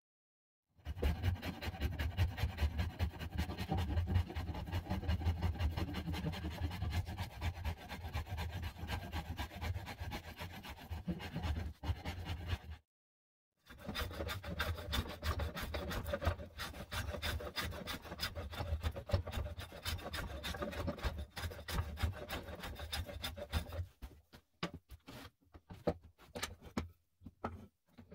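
Farrier's rasp filing an oak hatchet handle in quick back-and-forth strokes. The rasping starts about a second in, stops for about a second near the middle, and thins to scattered strokes near the end.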